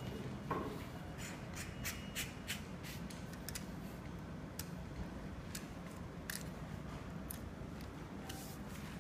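Light plastic-and-metal clicks and taps as a monitor bracket is handled and fitted onto a telescopic pole: a quick run of clicks a little over a second in, then single clicks every second or so, over a low steady hum.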